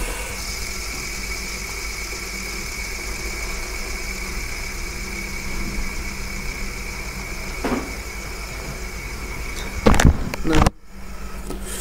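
Light-up fidget spinner spinning flat on a wooden tabletop, its bearing giving a steady high whir. About ten seconds in it stops with a couple of loud handling knocks.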